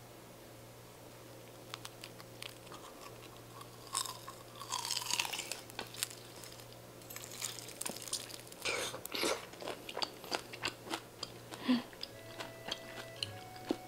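A crunchy bite into crisp grilled whole beef large intestine (tongdaechang) about four seconds in, then close-miked chewing with wet crackles and mouth clicks.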